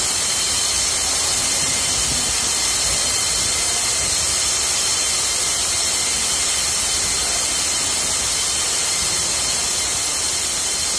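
Medium-velocity water spray nozzles discharging through an open deluge valve during a hydrotest, a steady loud hiss of water spray.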